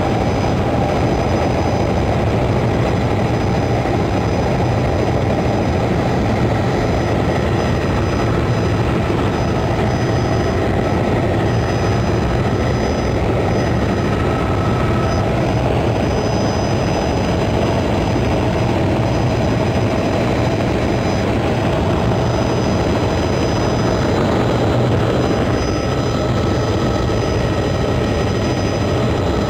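Helicopter in flight heard from inside the cabin: loud, steady rotor and engine noise with a deep hum and a faint high whine held throughout.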